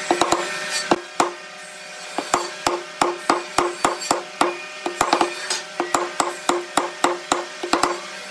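Wooden mallet driving a chisel into a pine frame: a run of sharp knocks, each with a short ring, about three a second after a brief lull a little over a second in.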